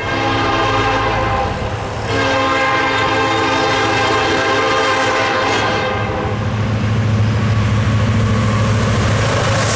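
Diesel locomotive horn on an approaching freight train sounding for a grade crossing: a blast of about two seconds, then a longer one that ends about six seconds in. After it, the locomotive's engines and the rolling train rumble steadily as it draws closer.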